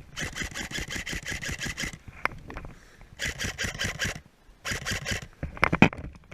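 Airsoft electric rifle firing three full-auto bursts, a rapid even rattle of about a dozen shots a second. The first burst lasts about two seconds, then a one-second burst and a short half-second one. A couple of sharp knocks come near the end.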